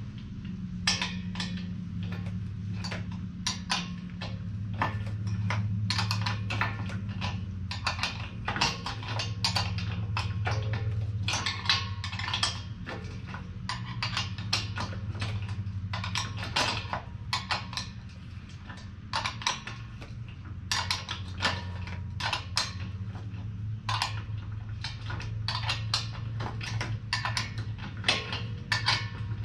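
Wrenches and a steel axle nut clinking and knocking as a small wheel is mounted and tightened onto an air compressor's axle: an irregular run of light metal clicks and knocks over a low steady hum.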